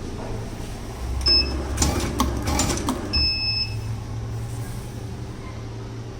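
Automatic tape cutting machine running a cut cycle. A short beep from its control panel comes just after a second in, then its feed motor hums while the cutter makes a quick run of clicks and knocks. A longer beep follows about three seconds in, and the hum fades away.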